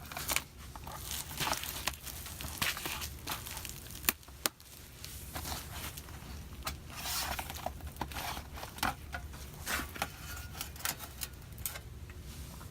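Handling noise as a MacBook Pro's bottom panel is worked loose and lifted off: irregular scraping and rustling with a few sharp clicks, two of the sharpest about four seconds in.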